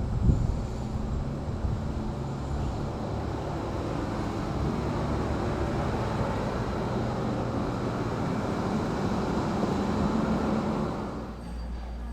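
Motor-vehicle noise: a steady rush that slowly builds and then fades away near the end, as a vehicle goes by.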